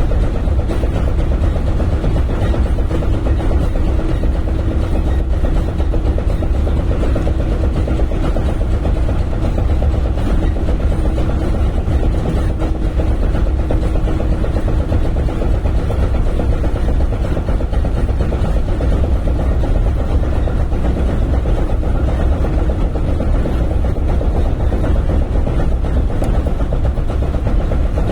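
Shinano Railway 115-series electric train running between stations, heard inside the car: a steady low rumble of wheels and traction motors. A steady hum runs alongside it and fades out about halfway through.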